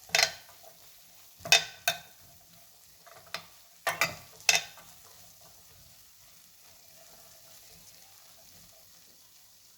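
A spoon stirring black chickpea curry in a hot pan, scraping and knocking against the pan about six times in the first five seconds. After that, a faint, steady sizzle of the nearly dry curry on the heat.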